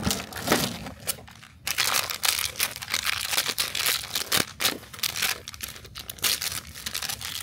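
Foil wrapper of a toy blind pack crinkling and tearing as it is pulled open by hand. Fairly sparse for about the first second and a half, then a dense run of crackles.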